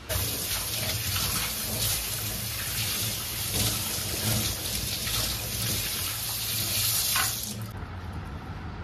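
Tap water running into a stainless steel sink as a banana leaf is rinsed under it, an even rushing splash that cuts off about a second before the end.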